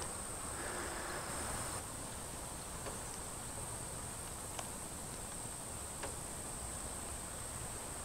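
Steady, high-pitched buzzing of insects, with a few faint ticks.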